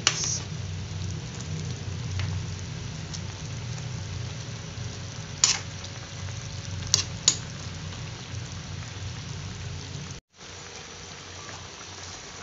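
Sinigang broth with fish boiling in a wok, a steady bubbling and low rush, while a metal ladle stirs it and clinks against the pan, once about halfway and twice more shortly after. The sound briefly cuts out near the end.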